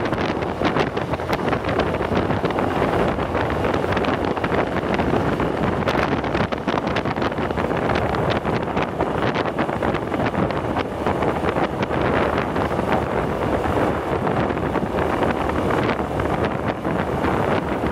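Wind buffeting the microphone on a moving motorcycle, a steady rush with irregular crackles, over the engine and road noise of the ride.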